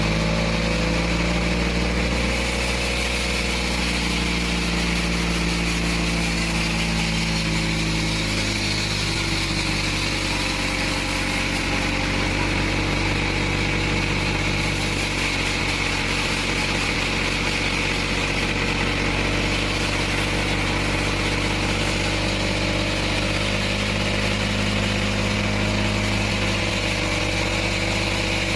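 Homemade bandsaw sawmill running steadily, its engine note shifting slightly a few times over a continuous hiss.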